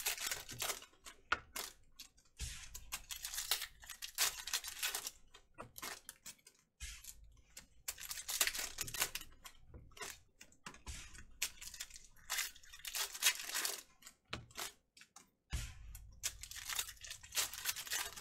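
Foil wrappers of trading card packs being torn open and crinkled by hand, in repeated bursts of crackly tearing with short pauses between them.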